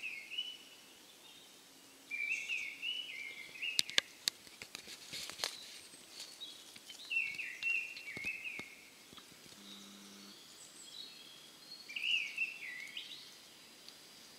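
A songbird repeating a short phrase of song that steps down in pitch, about once every five seconds. A scatter of sharp ticks comes around four to five seconds in.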